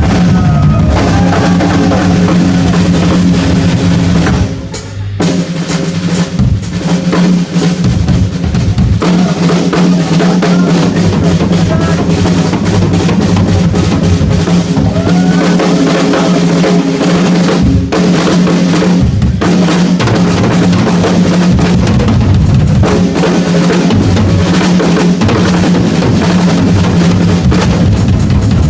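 Heavy metal drum solo on an amplified rock drum kit: dense, fast strikes on the snare and toms over bass drum, with a short break about four to five seconds in.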